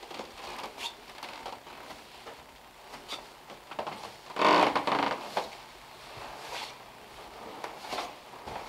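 Footsteps going down carpeted stairs, soft and irregular, with rustling of clothing. A louder scuffing rustle lasts about a second, halfway through.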